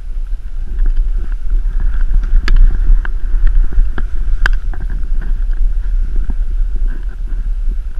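Wind buffeting the microphone of a camera carried by a skier on the move, a loud, steady low rumble, with a few sharp knocks, the loudest about four and a half seconds in.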